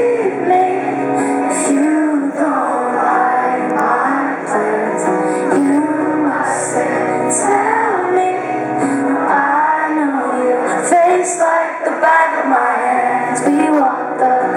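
Live concert performance of a song: a woman singing the lead melody over instrumental accompaniment.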